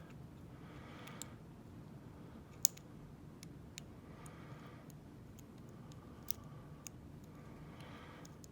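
Faint lock-picking clicks: the pick tool working the pins inside a Schlage padlock, a handful of sharp isolated ticks spread a second or more apart, two of them louder than the rest.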